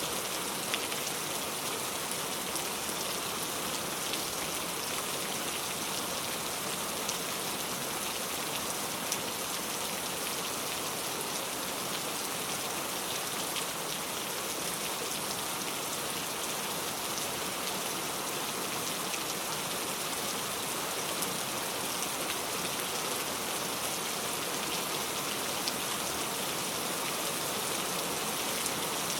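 Heavy rain falling steadily, a dense even hiss with scattered sharper drop taps.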